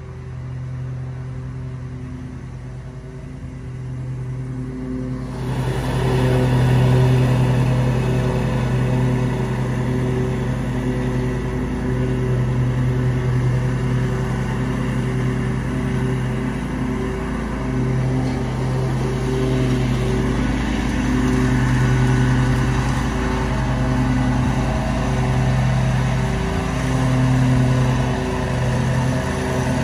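Commercial lawn mower engine running steadily while mowing. It gets clearly louder about five seconds in, then rises and falls a little as the mower works across the lawn and the bank.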